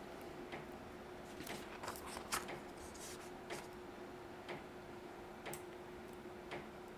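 A clock ticking faintly and evenly, about once a second, with a cluster of paper rustles and clicks from book pages being turned around two seconds in. A faint steady hum sits underneath.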